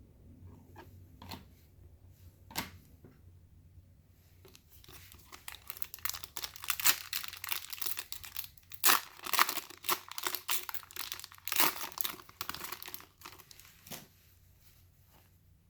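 A trading card pack's wrapper being torn open and crinkled: a few light clicks and rustles, then about nine seconds of dense crackling starting some four and a half seconds in.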